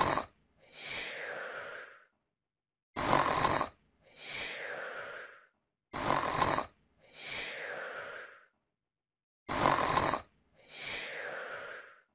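A person snoring in a steady rhythm, about one breath every three seconds. Each breath is a short, loud snore followed by a longer, softer breathy sound.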